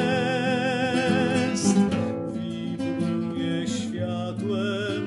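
Male voice singing a long held note with vibrato, then a shorter sung phrase, over chords strummed on a nylon-string classical guitar.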